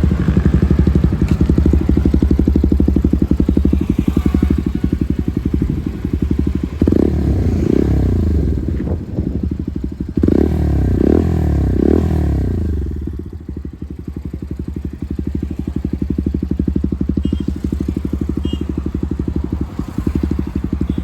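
Bajaj NS160's single-cylinder engine idling through an aftermarket SC Project exhaust, blipped in a few quick revs about seven seconds in and three more a little after ten seconds, then settling back to a steady idle.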